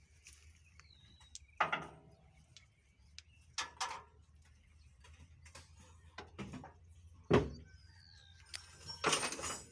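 Irregular metal knocks and clanks from hydraulic hoses and their couplings being handled and fitted between a disc plough and a tractor, the loudest about seven seconds in, with a longer scraping noise near the end.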